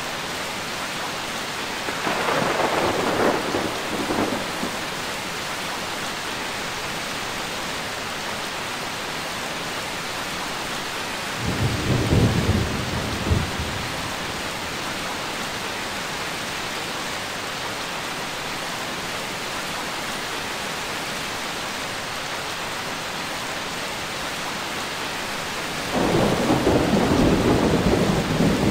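Steady rain with three rolls of thunder: one about two seconds in, a deeper, lower rumble near the middle, and another starting near the end.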